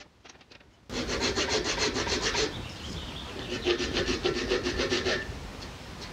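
A small round file rasping back and forth across the tip of a hickory bow, cutting a shallow string groove for a self nock. Two spells of quick, even strokes, the first starting about a second in, with a short pause between.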